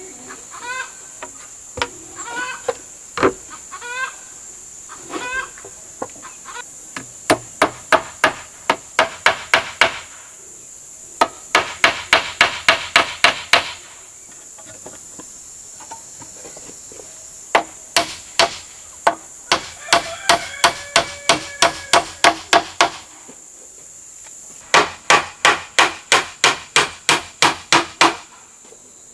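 Claw hammer nailing together a wooden plank frame: runs of sharp blows, about four a second, with short pauses between runs.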